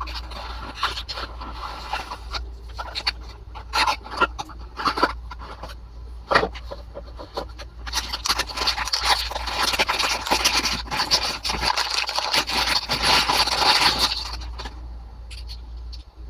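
Toy car packaging and the die-cast car being handled: scattered clicks and crinkles, then a denser rubbing, scraping rustle for several seconds through the middle.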